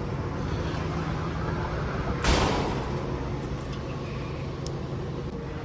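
A steady low mechanical hum, with a short noisy rush about two seconds in.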